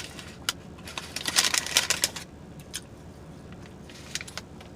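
Close-up chewing and lip smacking on a mouthful of croissant breakfast sandwich: a dense run of quick wet clicks for about a second, thinning to scattered clicks after about two seconds.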